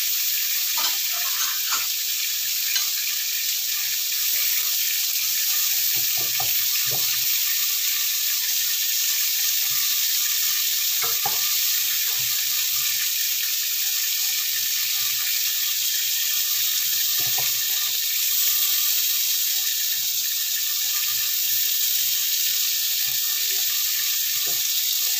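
Beef slices, cucumber and baby corn frying in oil in a nonstick pan: a steady sizzle. A wooden spatula gives a few short scrapes and taps against the pan as the beef is lifted out.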